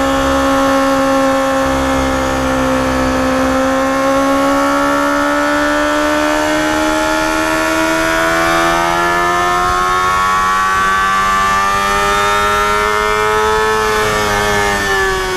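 Yamaha FZR250R's 250 cc inline-four engine pulling hard up a climb in one gear. Its note rises slowly and steadily for about fourteen seconds as the revs build, then drops near the end as the throttle is eased off.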